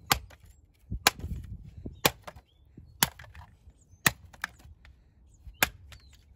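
About six sharp blows, roughly one a second, from a hand tool smashing the plastic body of a Vax Gator Pet 18V handheld vacuum.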